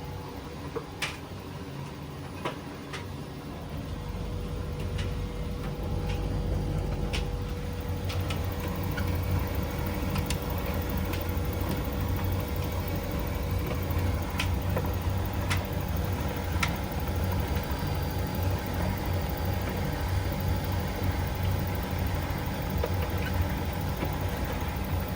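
LG RC82EU2AV4Q condensation dryer running: a steady low motor hum with a faint steady tone over it. It grows louder about four seconds in, and scattered light clicks sound now and then.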